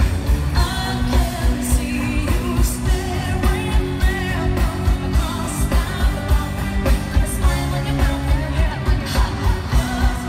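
Live pop concert music over a loud PA: a heavy, pulsing bass beat with singing on top, recorded from the audience.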